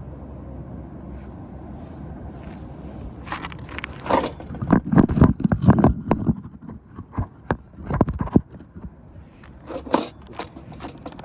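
Campfire with irregular crunching and cracking, loudest in the middle stretch, and a few sharp pops near the end, over a low steady rumble at the start.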